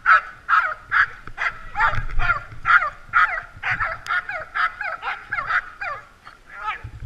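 Huskies barking and yelping excitedly in a quick run of short, high repeated calls, about two or three a second, a few overlapping, tailing off near the end.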